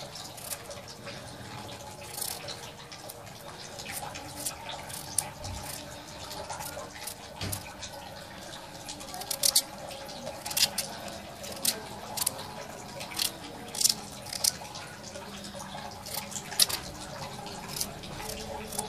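Kitchen knife cutting chunks off a raw potato held in the hand, with short, crisp, irregular snaps and clicks as the pieces split off and fall onto chopped greens. The cuts come more often in the second half.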